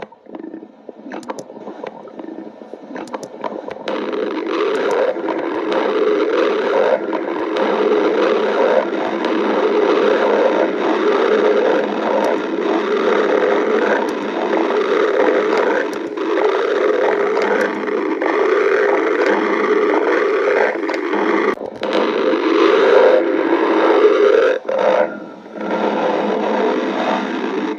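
Human stomach growling: one long, continuous rumbling growl that builds over the first few seconds, with two short breaks near the end.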